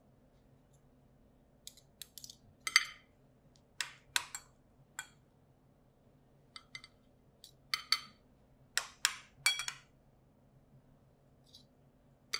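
Metal spoons clinking and scraping lightly against a ceramic bowl and plate as corn kernels are spooned out and arranged: a dozen or so irregular light clinks over a faint steady hum.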